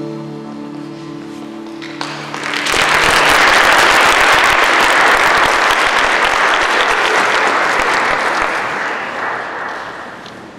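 Audience applauding in a large hall. It starts about three seconds in as the last held notes of the music die away, peaks, then fades out near the end.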